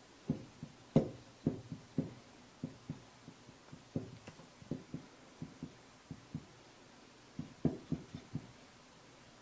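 Heated nakwha burning iron dabbed against hanji paper in quick short strokes: a run of soft, irregular low taps, several a second, with a pause of about a second near the end.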